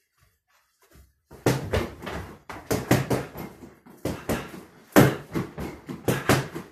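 Boxing gloves punching a free-standing heavy bag: quick runs of sharp thuds, starting about a second in.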